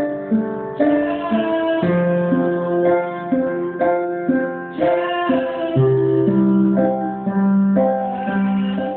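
Instrumental music led by an electric keyboard playing chords that change about once a second.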